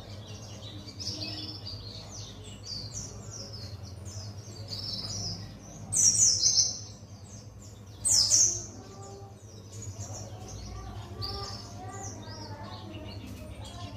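A young Buxton's white-eye singing a continuous run of quick, high chirping phrases, with two much louder falling bursts about six and eight seconds in. It is a bird still learning its long chattering 'ngalas' song.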